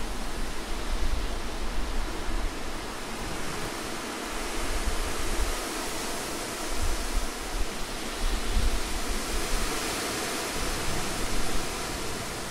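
Wind: a steady rushing hiss with irregular low rumbling gusts.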